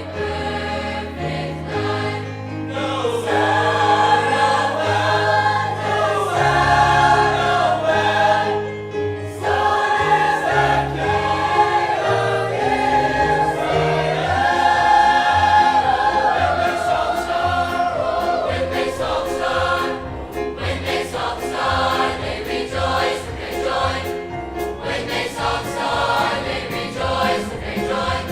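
A large high school choir of mixed voices singing a Christmas song, sustaining full chords that move step by step.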